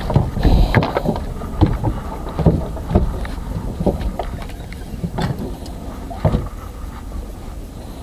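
Wooden fishing boat's inboard engine running with a steady low drone, with irregular knocks on the boat throughout.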